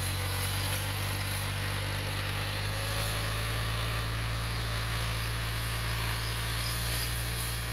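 Tractor diesel engine running steadily with a low, even hum, its pitch rising slightly about three seconds in.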